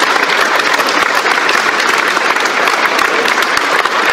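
Audience applauding: many people clapping at once, steady and loud throughout.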